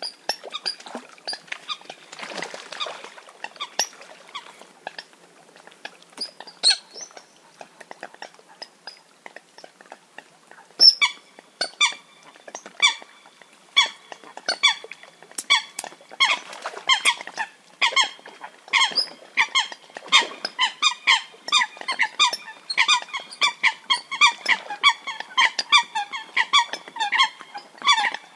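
Eurasian coots calling: short, sharp, high calls, faint and scattered at first, then loud from about a third of the way in and crowding into a fast, dense chatter of several calls a second. These are the coot's fight calls.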